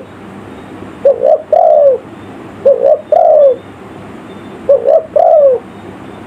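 Spotted dove (tekukur) cooing its lure call: three phrases, each two short notes and then a longer falling coo, repeated about every two seconds.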